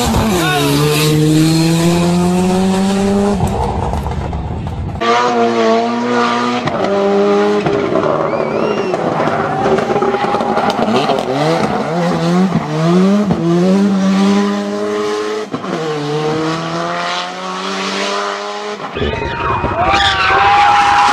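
Ford Sierra Cosworth rally car's turbocharged four-cylinder engine revving hard, rising in pitch through each gear and dropping at the shifts, with tyres squealing as it slides through hairpins. The sound changes abruptly twice where separate passes are cut together.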